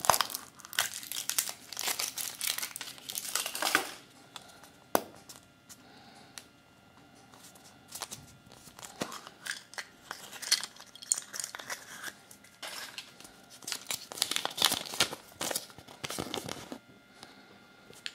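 Kinder Surprise egg's foil wrapper and paper toy leaflet rustling, crinkling and tearing as they are handled, in bursts, with a single sharp click about five seconds in.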